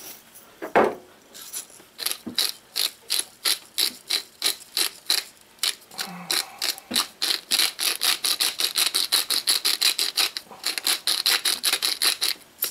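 Hand-twisted salt and pepper grinder grinding: a fast run of ratcheting clicks, about four to five a second, broken by a couple of short pauses.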